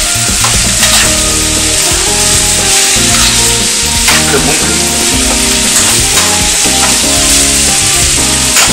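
Diced potatoes, carrots and green peppers with garlic sizzling in oil in a frying pan on low heat, stirred with a metal utensil that scrapes and clicks against the pan a few times.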